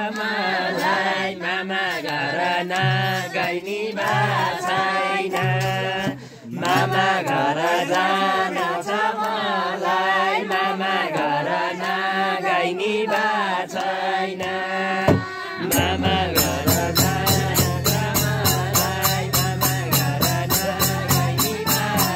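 Villagers singing a Nepali devotional bhajan together, with a madal barrel drum beating under the voices. About fifteen seconds in, the singing gives way to the instruments, with a frame drum and brass hand cymbals striking a fast steady beat over the drumming.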